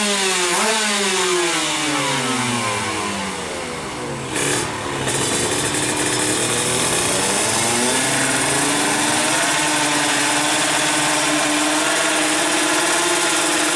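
155cc two-stroke drag bike engines: sharp rev blips, then a long fall in pitch, then a climb to a high, steady full-throttle note held to near the end.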